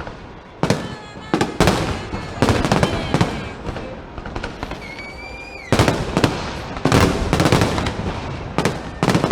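Fireworks display: aerial shells bursting one after another in sharp bangs with echoing tails. There is a brief lull about four to five seconds in, then a dense volley of bursts.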